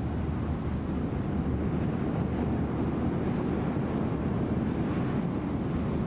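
Steady wind with a low rumble of gusts buffeting the microphone.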